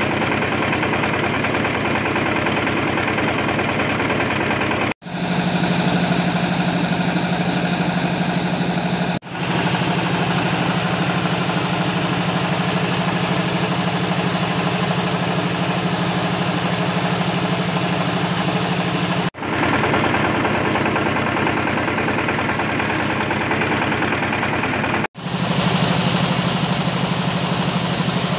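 Coffee huller machine running steadily, a continuous mechanical drone with a low hum as it hulls dried coffee cherries. The sound drops out abruptly four times for an instant and resumes.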